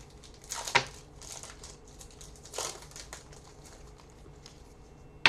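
Football trading cards being handled and flipped through, giving a few short papery swishes and rustles, with a sharp tap at the very end.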